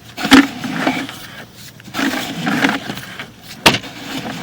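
A sewer inspection camera's push cable being worked through the pipe: irregular scraping and rattling, with a sharp click near the end.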